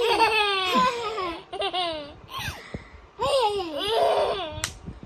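Young children laughing in high-pitched, pulsing bursts, with a short sharp click near the end.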